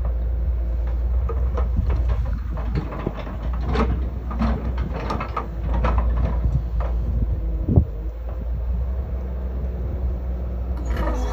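Crawler excavator's diesel engine running steadily under digging load, with scattered knocks and clanks from the bucket and boom working the soil; one sharp clank about three-quarters of the way through.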